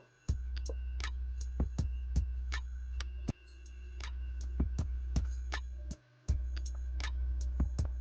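Irregular sharp clicks, two or three a second, over a steady low electrical hum from the recording. The hum drops out briefly at the start and again about six seconds in.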